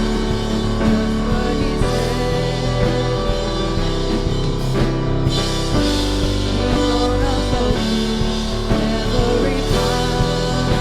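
Live church worship band playing with drums, guitar and keyboard, with some singing over it.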